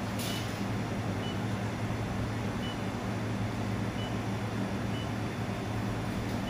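Steady hum and fan noise of a handheld fiber laser welding machine running, with about five short high beeps from its touchscreen control panel as keys are tapped.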